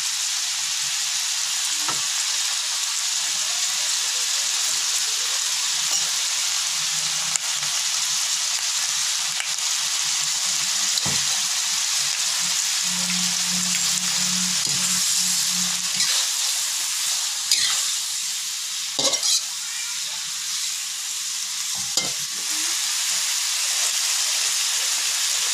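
Water spinach and oyster sauce sizzling steadily as they are stir-fried in a wok, with a metal spatula scraping through the greens and knocking against the pan a few times in the second half.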